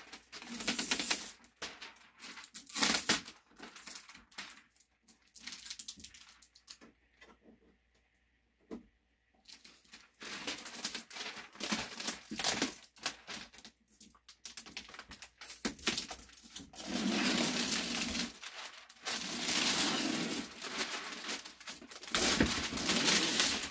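Protective plastic film being peeled off a new flat-screen TV's screen, crinkling and crackling in bursts. It goes quiet for a few seconds about a third of the way in, then crinkles more steadily through the second half.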